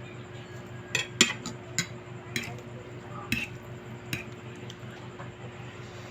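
Eating utensils clinking and tapping against a dish about seven times, short sharp knocks spread over a few seconds, over a steady low hum.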